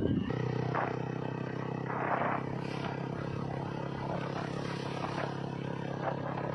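Motorcycle engine running at a steady pitch while riding, over road and wind noise, with a brief rush of noise about two seconds in.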